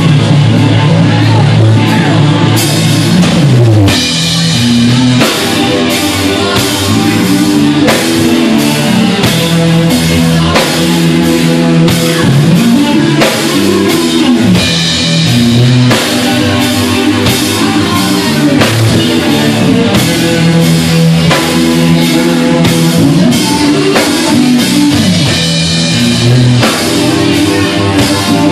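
Live instrumental rock from an electric guitar, an electric bass and a drum kit, played loud through amplifiers. Cymbals come in about two and a half seconds in, and after a falling slide the drums settle into a steady beat under the bass and guitar.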